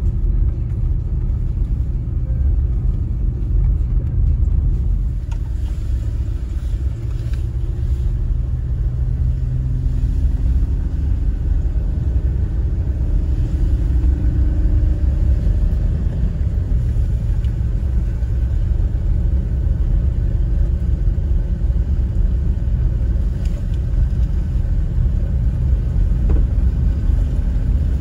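Jeep Gladiator driving on a gravel road, heard from inside the cab: a steady low rumble of tyres and engine with a faint engine hum.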